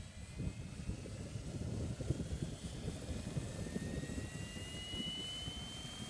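MSH Protos radio-controlled helicopter hovering low over the ground. Its high whine rises slowly in pitch over a low, uneven rumble.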